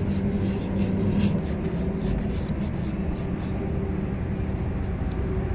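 Fine emery paper rubbed by hand in quick back-and-forth strokes, about three a second, around the chrome rod of a JCB 3DX hydraulic cylinder. It is polishing a brass weld fill over a scratch flush with the rod's surface, so the seal won't leak. The strokes stop about two-thirds of the way through, over a steady low hum.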